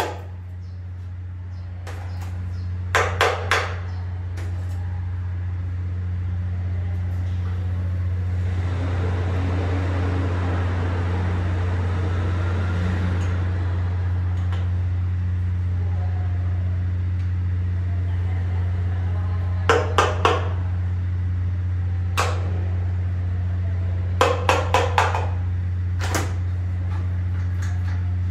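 Short groups of quick, sharp taps, two to four at a time, from a hammer handle driving a Toyota 2TR-FE piston and its rings down through a ring compressor into the cylinder bore. Underneath is a steady low hum, with a soft rushing noise for a few seconds in the middle.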